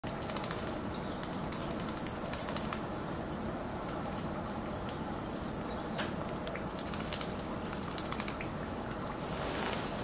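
White-eyes bathing under falling water: a steady hiss and patter of spraying water with quick fluttering wingbeats and sharp little clicks as the birds splash and shake. A short high chirp comes near the end.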